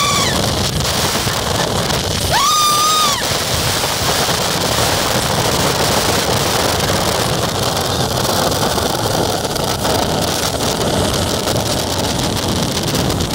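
Motorboat running at speed: a steady mix of engine and rushing water, with wind buffeting the microphone. A short high-pitched squeal about two and a half seconds in.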